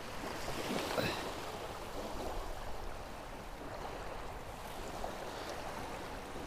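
Steady noise of strong wind and waves lapping at the shore, with a faint short click about a second in.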